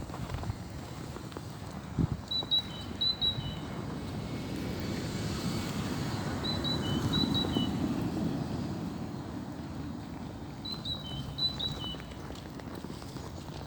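A songbird sings the same short phrase three times, about four seconds apart: quick high notes alternating with slightly lower ones. Beneath it runs a low, steady rumble that swells midway.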